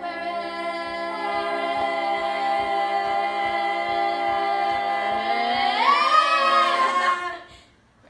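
A small group of girls singing a cappella, holding a long chord in harmony; near the end the voices slide upward and the singing breaks off.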